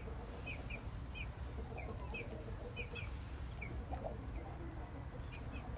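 Chickens cheeping and clucking faintly: many short high peeps scattered throughout, with one lower cluck about four seconds in.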